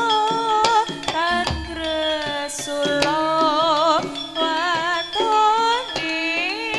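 Live Javanese jaranan campursari music: a sung melody with heavy vibrato and pitch bends over regular drum strokes, with a deep low stroke about a second and a half in.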